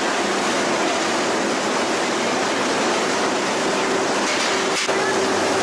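Steady, loud din of a crab processing plant's machinery running, with a steady hum tone joining about two-thirds of the way through.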